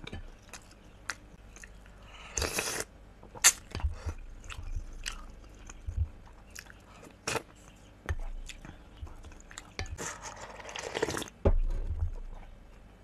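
A person eating soup by the spoonful close to the microphone: chewing and wet mouth sounds with many short sharp clicks, and two longer slurps, a short one about 2.5 s in and a longer one about 10 s in.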